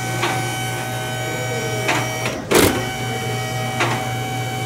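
Electric motor and hydraulic pump of a drive-on vehicle lift running steadily while raising a pickup truck, a steady hum with a whine above it. Four sharp clicks sound over it, the loudest about halfway through.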